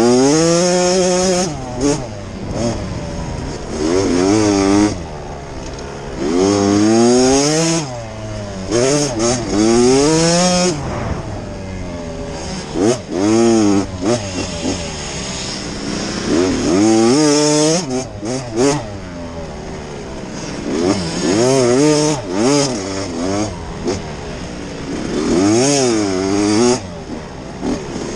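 Off-road dirt bike engines revving up and falling back again and again as the bikes race past, the pitch climbing and dropping through gear changes, with more than one bike heard at times.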